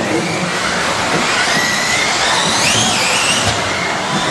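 Electric off-road RC buggies racing: several high-pitched motor whines gliding up and down as the cars accelerate and brake, over a steady wash of noise.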